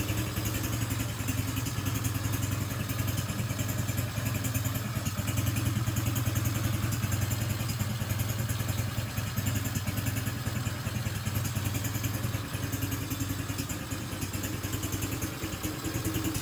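Freshly started 125 cc single-cylinder four-stroke ATV engine idling steadily.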